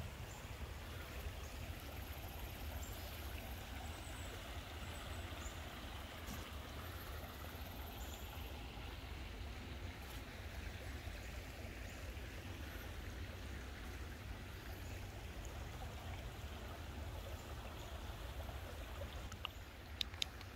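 A shallow rocky creek flowing over stones, a steady rushing trickle over a low rumble, with a few sharp clicks near the end.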